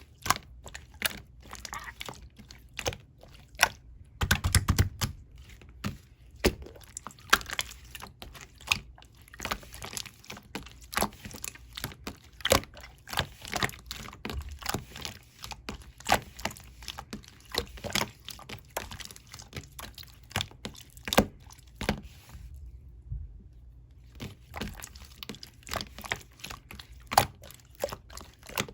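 Clear slime played with by hand: a continuous run of sticky clicks and small pops, several a second, with a denser cluster about five seconds in and a short pause late on.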